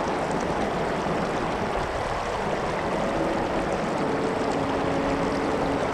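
Mountain creek rushing steadily over rocks in shallow riffles. Faint background music comes in over the water about halfway through.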